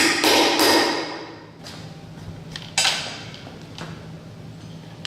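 Knocking and clattering of bolts being fitted through a plywood board from the back. There are several loud knocks in the first second and one sharp knock a little under three seconds in.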